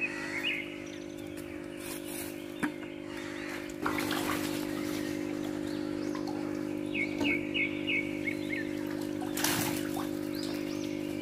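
Water splashing as a long-handled scoop net is swept through a concrete fish tank, with the biggest splash about nine and a half seconds in. A steady hum runs underneath, and a bird chirps a few times around seven seconds.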